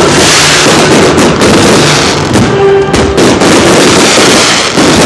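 Fireworks display: a loud, continuous run of overlapping bangs and crackling from bursting aerial shells.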